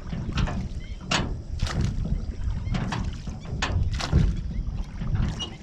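Oars splashing in the water in repeated strokes, often in pairs, as a small rowboat is rowed, with a steady low wind rumble on the microphone.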